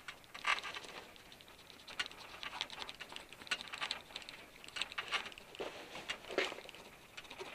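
Irregular scrapes and clicks of a screwdriver tip pushing the edge strip of a new RV awning fabric into the groove of the awning roller tube.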